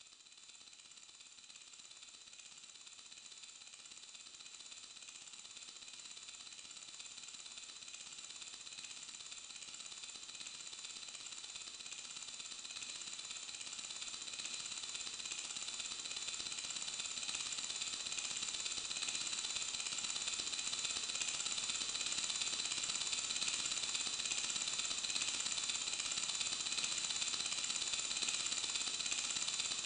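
A dense, steady mechanical clicking sound, mostly high in pitch, that swells gradually louder over the first twenty seconds or so and then holds.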